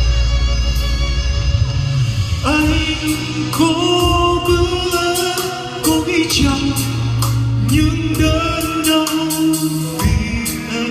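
Live band music from a pop-rock song: long held melody notes over a steady bass line and regular drum hits.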